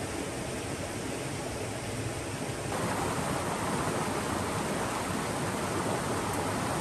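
Steady rush of a small river cascade, getting louder and fuller about three seconds in.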